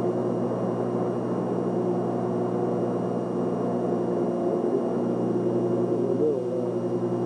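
A steady hum made of several held low tones, with faint distant voices about four and six seconds in.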